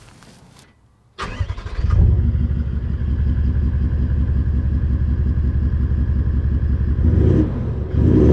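Toyota LandCruiser 79's V8 turbo-diesel cranking and firing up about a second in, then settling into a steady idle through its aftermarket Outback Exhausts system, with a brief lift in revs near the end.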